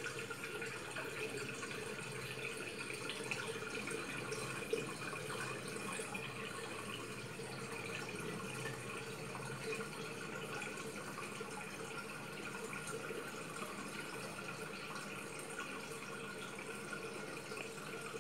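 Top-loading washing machine running a wash: water swishing and splashing in the drum over a steady faint motor hum.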